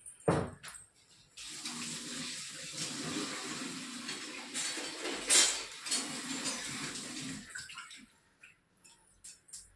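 Water running from a tap for about six seconds, after a sharp knock just at the start, with a clatter about halfway through.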